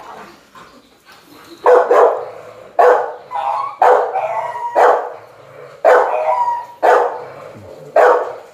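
A dog in a kennel pen barking repeatedly, about eight loud barks roughly a second apart, starting about a second and a half in.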